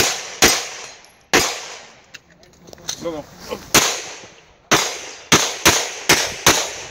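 Pistol shots fired while shooting a practical-shooting stage: two shots about a second apart, a pause of over two seconds while the shooter moves, then six more shots, the last five in quick succession.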